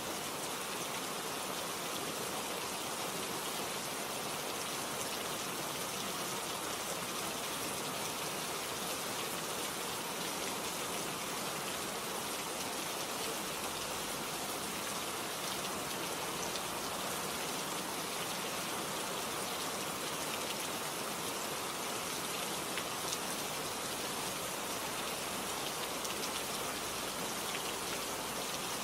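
Steady rain falling on a surface, an even hiss with a few separate drop ticks.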